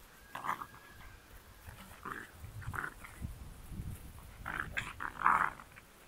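American Staffordshire Terrier puppies play-fighting, giving short yips and growls several times, the loudest about five seconds in.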